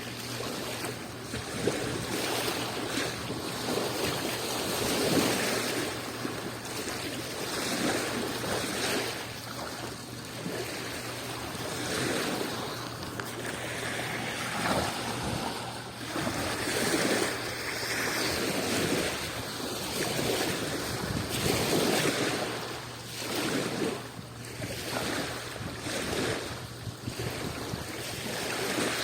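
Small Adriatic Sea waves washing onto the shore, the surf swelling and falling back every second or two, with some wind on the microphone.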